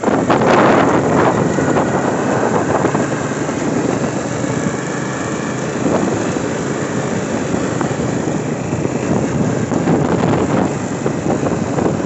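Small open vehicle moving steadily along a paved street: a continuous motor and road noise mixed with wind buffeting the microphone.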